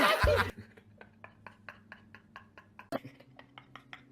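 A voice breaks off in the first half second. Then comes a quiet, even run of short soft clicks, about five a second, with one sharper click about three seconds in, over a faint low hum.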